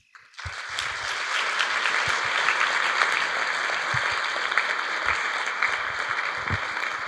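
Audience applauding steadily in a large hall, starting about half a second in.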